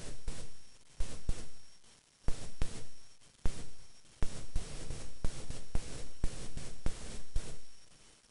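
Hands rubbing and smoothing hair close to the microphone, with sharp clicks from the metal hair clips holding the wrap. Each click comes with a short rustle that fades, about once a second.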